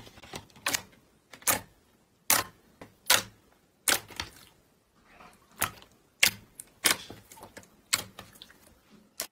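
Glossy slime being pressed and poked by fingers, giving sharp clicks and pops in an irregular series, more than a dozen, with short quiet gaps between them.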